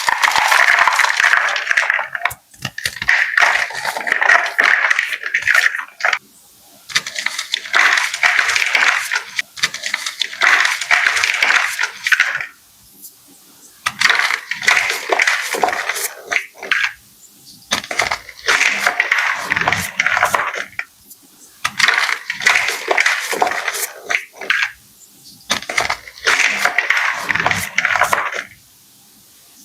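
Blocks of gym chalk crunching and crumbling as they are crushed, with many sharp crackles, in stretches of a few seconds broken by short pauses.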